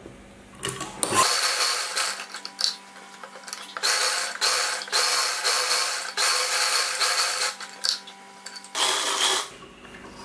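Sewing machine stitching a seam through layered cotton fabric. It runs in spurts with several short pauses, starting about a second in and stopping near the end.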